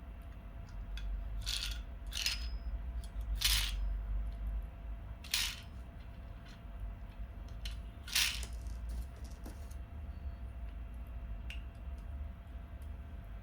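Toy revolver being handled: a scatter of sharp plastic clicks and clacks, five louder ones within the first eight seconds and fainter ticks after, over a low steady hum.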